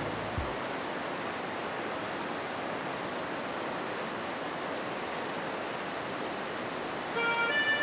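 Steady, even rushing noise of running water, like a mountain torrent. Music with accordion comes in near the end.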